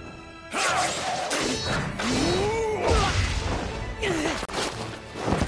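Animated sword-fight sound effects: crashing impacts and sword swings starting abruptly about half a second in, over background music.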